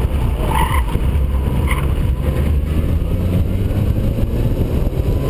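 Mini Cooper S R53's supercharged 1.6-litre four-cylinder engine running steadily, heard through heavy wind and road rumble on an exterior-mounted camera. Two short high squeals come about half a second and just under two seconds in.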